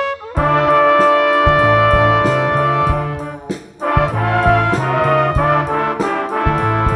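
A trumpet ensemble playing with electric bass guitar and drum kit. A held brass chord cuts off at the very start, then the trumpets come back in over a stepping bass line, regular hi-hat ticks and drum hits, with a brief break about three and a half seconds in.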